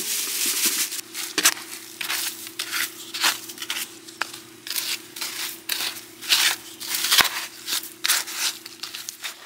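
Green plastic garden scoop scraping and tossing loose compost soil over food scraps: a run of short gritty scrapes, about two a second, with a few sharper knocks.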